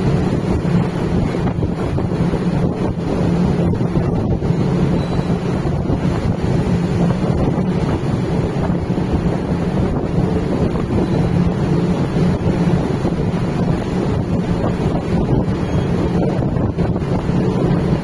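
Steady wind blowing across the microphone over the rush of water churning along the hull of a large ship under way at sea, with a low, even drone underneath.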